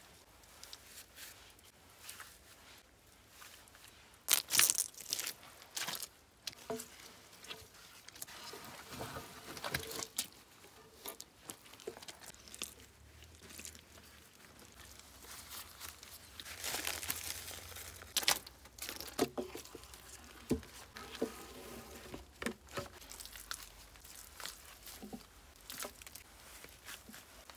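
Moss and damp soil being torn apart and pressed by a gloved hand into the gap between a peeled log and an earth wall: irregular close rustling, tearing and crunching, with louder bursts about four seconds in and again past the middle.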